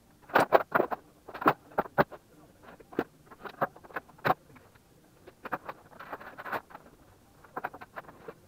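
Sped-up timelapse handling noise as cables and equipment are pulled from under a desk and set down: a fast, irregular clatter of clicks, knocks and scuffs, loudest in the first second and a half.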